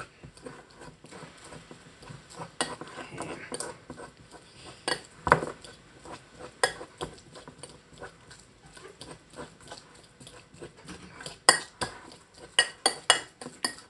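Metal fork mashing overripe bananas in a glass bowl, clinking and tapping against the glass in irregular knocks that come thicker near the end.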